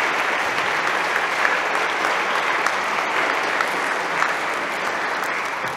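Congregation applauding in a church, a dense steady clapping that begins to die away at the very end.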